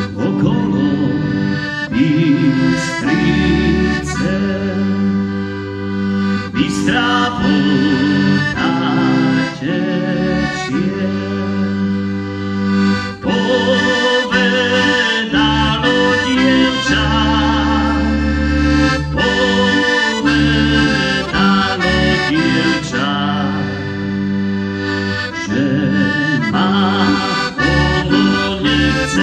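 Piano accordion playing an instrumental passage of a Slovak folk tune: a right-hand keyboard melody over sustained left-hand bass and chords, with some notes wavering.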